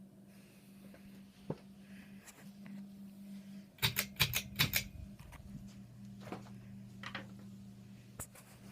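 Hampton Bay Bridgeton ceiling fan running with a steady low motor hum. A quick run of about half a dozen sharp clicks comes near the middle, with a few single clicks before and after.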